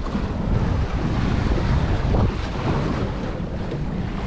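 Strong wind buffeting the microphone in a steady low rumble, with sea and boat noise underneath.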